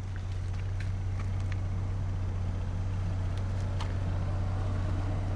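A steady low mechanical hum, with a few faint clicks over it.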